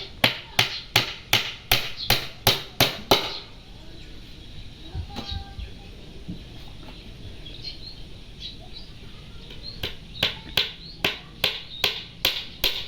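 Quick, even blows of a hand tool, about three a second, in two runs: one of about three seconds at the start and another beginning about ten seconds in. Faint bird chirps in the quieter gap between them.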